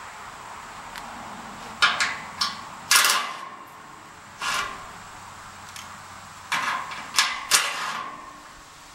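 Metal clanking: about eight irregular knocks and bangs, each with a short metallic ring, from steel framing parts or scaffold being handled. The loudest hits come about three seconds in and again in a quick cluster near the end.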